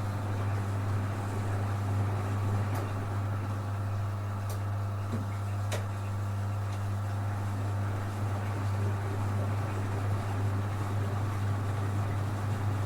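A steady low mechanical hum with an even drone, like a motor or engine running at a constant speed, with a few faint clicks.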